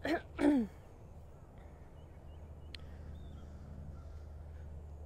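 A short spoken word at the start, then a low steady outdoor rumble with a few faint bird chirps and a single sharp click about three seconds in.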